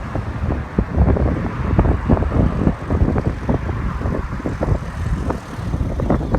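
Wind buffeting the microphone: a heavy low rumble broken by irregular gusty thumps and flutters.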